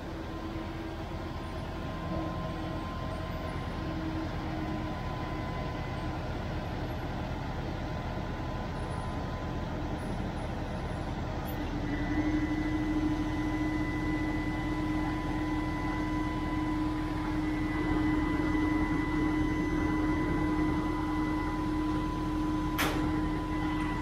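Tractor engine running steadily while the Grimme SE 75-55 potato harvester's bunker is moved hydraulically. About halfway through, a steady hydraulic whine sets in and holds, and a single sharp click sounds near the end.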